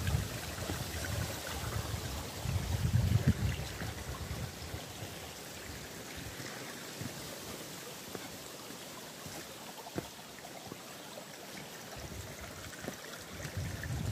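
Water rushing steadily along a narrow rocky stream channel. A low rumble of wind on the microphone covers it in the first few seconds and comes back near the end.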